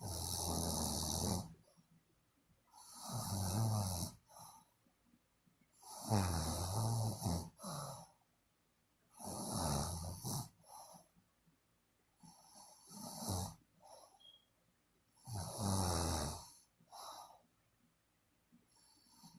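A sleeper snoring: six low snores about three seconds apart, each a buzzing in-breath with a hiss of air, several trailing off into a shorter, weaker breath.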